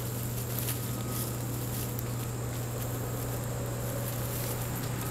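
A steady low hum runs under faint rustling and a few light clicks, as German Shorthaired Pointer puppies scuffle and wrestle in dry straw.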